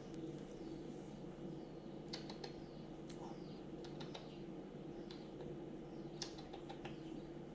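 Faint ambience: scattered light clicks and a few short, high chirps that slide down in pitch, over a steady low hum.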